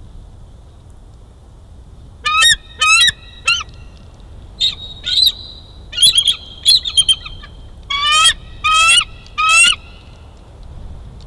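Bald eagle calling: a series of high, piping chirps in three bursts of several notes each.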